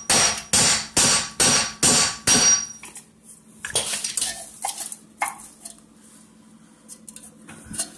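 Hammer striking a metal drift held against the end of the front drive axle in the wheel hub, about six ringing metallic blows at roughly two a second, knocking the axle's splined end loose to push it back through the hub. After that come a few lighter, scattered clanks.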